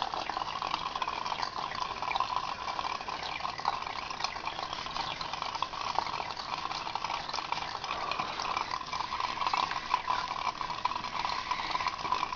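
Tap water running steadily into a sink, with small splashes and drips throughout.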